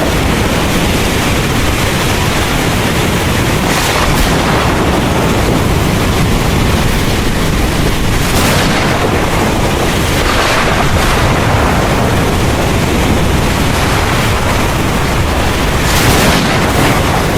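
Heavy rain falling steadily in a thunderstorm, with a deep low rumble of thunder and wind underneath and a few brief louder surges about 4, 8 and 16 seconds in.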